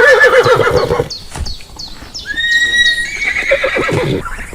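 Horse neighing: a loud, wavering whinny, then a few sharp clicks, and a second neigh starting about two seconds in.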